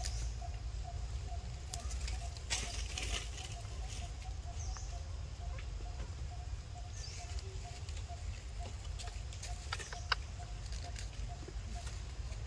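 Outdoor ambience: a steady low rumble of wind on the microphone, with a faint short note repeated evenly several times a second in the background and a few soft clicks.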